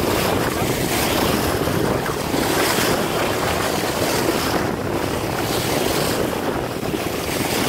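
Water rushing and splashing past the hull of a boat under way, with wind buffeting the microphone; the hiss swells and fades every second or two.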